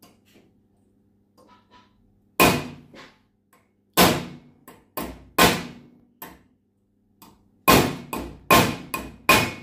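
Hammer blows on a steel screw head set in sheet metal held in a vise, each a sharp metallic strike with a short ring. About ten blows in uneven groups, a quicker run of them near the end. The blows press the screw head into the sheet to form a countersunk seat so it sits flush.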